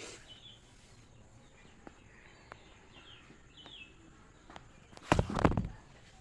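Faint bird chirps in the background with a few light clicks, then a loud, brief scraping knock about five seconds in.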